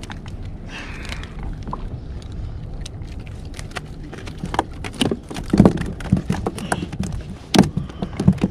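A steady low rumble, with a run of sharp, irregular knocks and clicks that starts about halfway through and grows busier.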